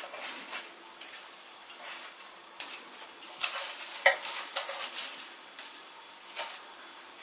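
Baked wraps being picked off a metal baking tray by a gloved hand and set down on a wooden board: scattered light scrapes and clinks on the tray, with sharper knocks about three and a half, four and six and a half seconds in.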